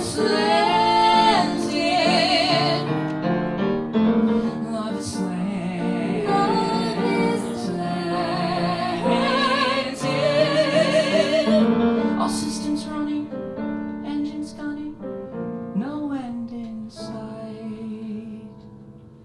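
Musical-theatre song: a woman sings long notes with a wavering vibrato over piano accompaniment. The music thins out and fades over the last several seconds, as at the close of the song.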